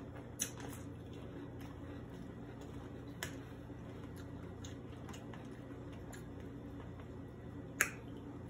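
Metal spoon scooping cereal and milk in a plastic container, with three sharp clicks of spoon on plastic and some fainter ticks, the loudest click near the end as a spoonful is lifted, over a steady low hum.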